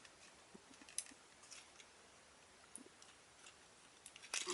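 Faint, sparse clicks of a plastic Transformers action figure's parts being handled and pried at, with a sharper click about a second in and a few more near the end.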